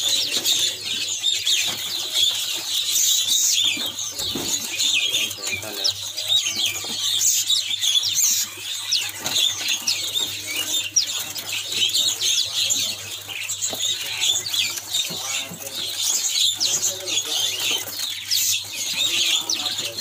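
Many small caged songbirds chirping rapidly and continuously, a dense chorus of short high chirps, with wings fluttering against the cage.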